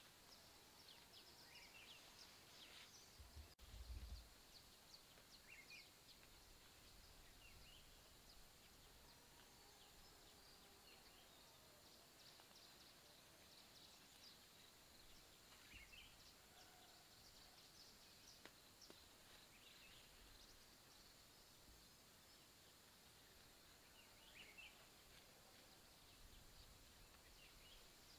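Near silence, with faint, scattered bird chirps, and a single low thump about four seconds in.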